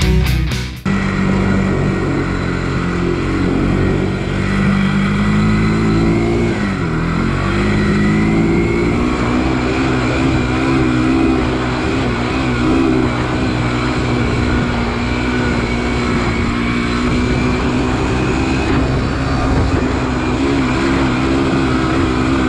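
Rock music cuts off abruptly just under a second in. It gives way to a Honda single-cylinder ATV engine running on the trail, its pitch dropping and climbing again with the throttle around six to eight seconds in, then holding fairly steady.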